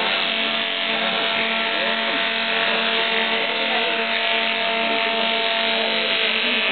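Small electric motor spinning a cloth buffing wheel with a steady hum while a small piece is held against the wheel to polish it.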